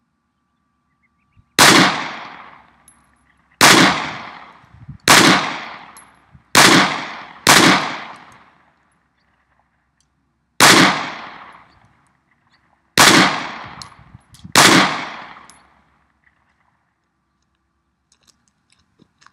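Eight single shots from a Glock 30 Gen 4 .45 ACP pistol at uneven intervals over about thirteen seconds. Each is a sharp crack followed by a ringing echo that dies away in about a second. The last shot runs the magazine dry.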